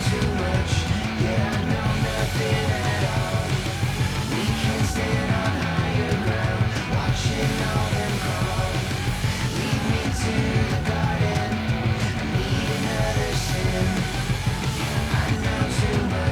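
Loud rock music with distorted guitar, drums and yelled vocals, in a heavy metal or punk style.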